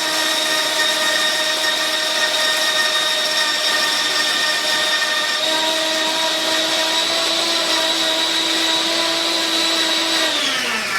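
Goldtouch 1500W high-speed electric grain mill running steadily as it grinds oats into flour, a loud, even motor whine. Near the end it switches off and winds down, its pitch falling.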